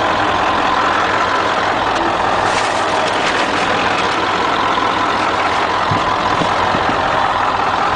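1997 Ford Super Duty's Power Stroke diesel engine idling steadily, with a thin steady whine over it and a few light knocks about six seconds in.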